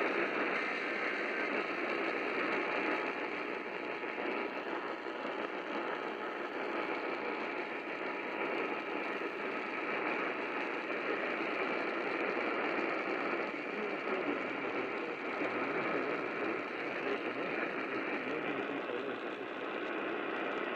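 Steady hiss and static of a noisy radio signal, with no clear voice or alert tone standing out.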